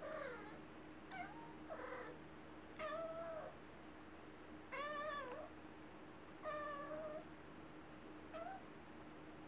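Long-haired kitten meowing repeatedly, about seven meows in a row, some short and chirp-like, others longer, with a faint steady hum underneath.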